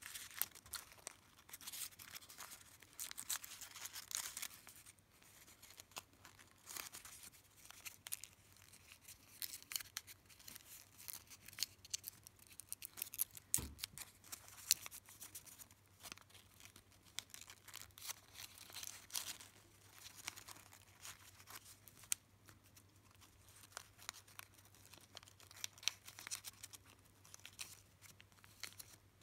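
Folded origami paper units rustling and crinkling as fingers slide and press them together, in soft irregular crackles with one soft low thump near the middle.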